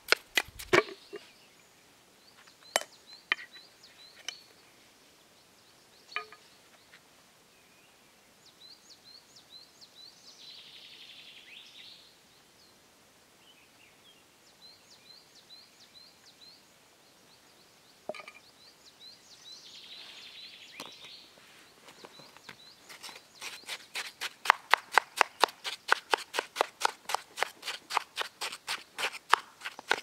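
Metal spoon scraping and crunching through snow: a quick run of scoops at the start, a few scattered clicks, then rapid, even scraping about four times a second over the last seven seconds as snow is stirred on a plate.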